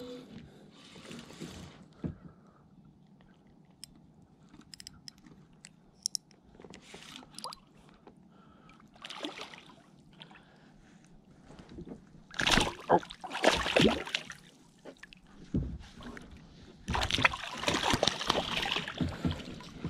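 A hooked largemouth bass thrashing and splashing at the water's surface beside a kayak, in loud bursts about twelve seconds in and again near the end, after a quieter stretch with a few faint clicks.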